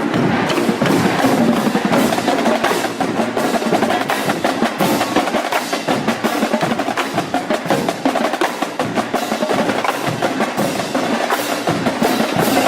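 Drumline percussion playing a fast, dense rhythm of sharp snare strokes and stick clicks over drums.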